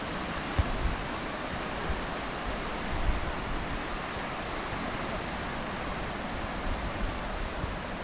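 Steady hiss of surf washing on a sandy beach mixed with wind on the microphone, with a couple of brief low wind bumps.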